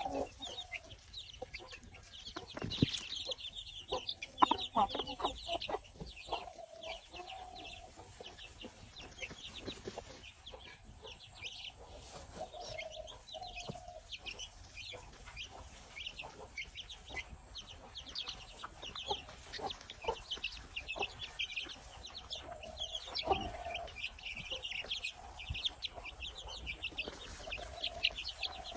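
Baby chicks peeping continuously in rapid, high-pitched chirps, with a few longer, lower calls from a chicken now and then.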